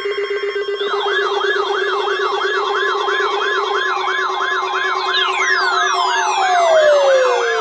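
Weather alert radio sounding its warbling alarm siren, set off by the NOAA Weather Radio 1050 Hz warning alarm tone, which runs as a steady tone underneath. The warble starts about a second in and cycles about three times a second, and a falling tone slides down from about five seconds in.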